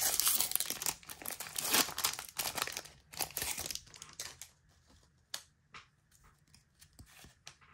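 The foil wrapper of a Pokémon card booster pack being torn open and crinkling. After about four seconds it gives way to fainter rustles and small clicks as the cards are slid out and handled.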